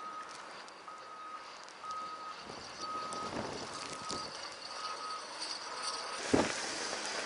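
A vehicle's reversing alarm beeping about once a second, a single steady pitch, over a background hiss. The beeping stops about six seconds in, followed by a sharp thud.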